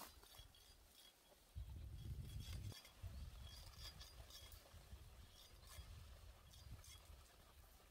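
Near silence: a faint low rumble, a little louder for about a second near the start, with scattered faint high ticks.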